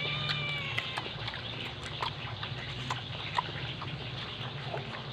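A single short animal call with a slightly falling pitch, lasting about a second at the start, followed by scattered small clicks over a steady low hum.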